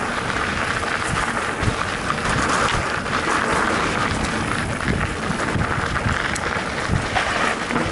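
Mountain bike riding a trail: wind buffeting the microphone, with the tyres rolling and the bike knocking and rattling over bumps.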